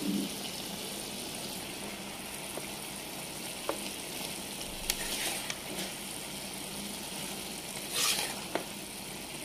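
Potato sticks frying in oil in a pan, a steady sizzle, with a few light clicks and a brief louder stir about eight seconds in.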